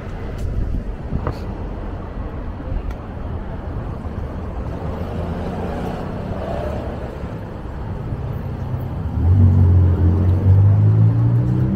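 Road traffic on a city street: a steady low engine rumble, then about nine seconds in a nearby vehicle's engine grows loud and rises in pitch as it pulls away.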